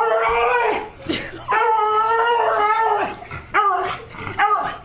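Dog howling: two long, wavering howls followed by two shorter howls near the end.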